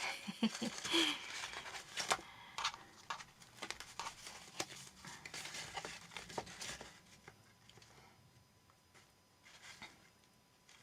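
Paper calendar pages being handled: rustling and crinkling with many small clicks and taps, busiest in the first seven seconds and sparse after.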